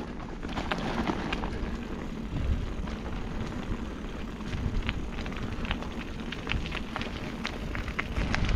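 Wind rumbling over the microphone while a loaded bike rolls over rough ground, with scattered sharp crunches and clicks from the tyres.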